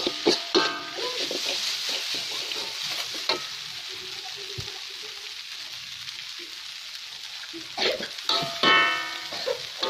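Instant noodles sizzling as they are stir-fried in a steel wok, with a metal spatula scraping and clattering against the pan in the first second and again near the end.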